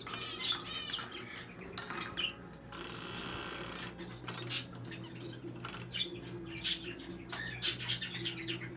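Young English budgerigars chirping and squawking, with short high calls scattered throughout and a rougher, rasping stretch about a second long near three seconds in.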